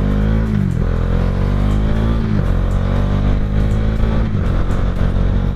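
Bajaj Dominar 400's single-cylinder engine pulling under way, its revs climbing and then dropping sharply three times, about a second in, about two and a half seconds in and near the end, as the rider shifts up through the gears.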